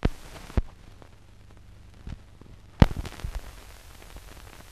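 Hiss and crackle of an old film soundtrack running over blank leader, with several sharp pops, the loudest just under three seconds in.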